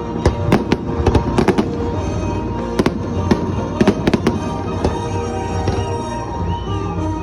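Fireworks going off in quick clusters of sharp bangs and crackles, the densest about a second in and around three to four seconds in, over steady background music.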